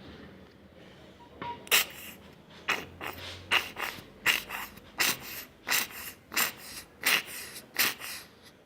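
Small plastic squeeze tube of paint squeezed over and over into glue, giving a regular run of about a dozen short squirting puffs of air, roughly one and a half a second.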